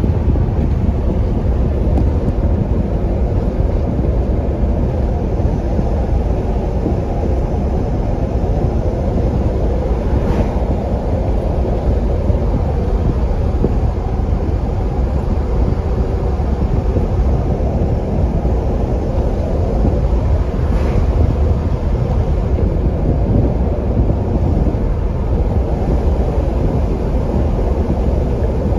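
Truck driving on a dirt road: a steady, loud, low rumble of engine and tyres, with wind on the microphone.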